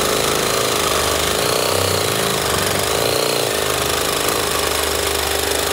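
Compact reciprocating saw running steadily as its blade cuts through a steel rotisserie spit rod clamped in a bench vise.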